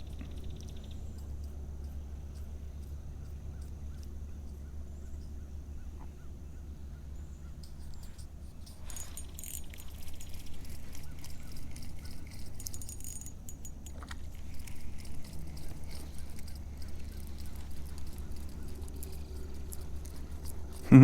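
Outdoor ambience on open water: a steady low rumble with faint bird calls, and a single sharp knock right at the end.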